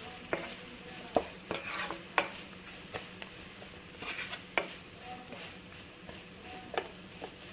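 A spoon stirring grated coconut, onion and spices frying in coconut oil in a pan, scraping and knocking against the pan at irregular intervals over a faint sizzle, as the coconut masala for papaya thoran is roasted.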